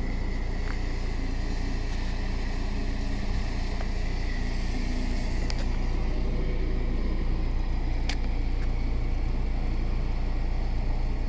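Car driving at a steady speed: the engine and the tyres on the road make a steady low rumble inside the car. There are a few faint ticks.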